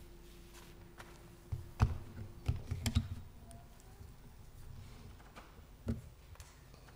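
A few knocks and taps, loudest about two seconds in and one more near six seconds: someone stepping up to a wooden pulpit and handling things on it, close to its microphone.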